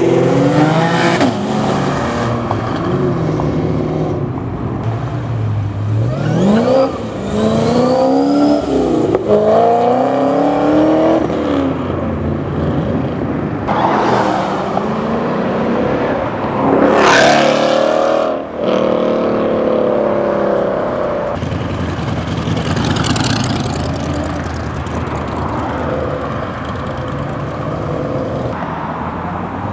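Cars driving off one after another and accelerating past, their engines revving up through the gears in repeated rising sweeps of pitch that drop back at each shift. Two loud close passes come around the middle, then a steadier engine sound.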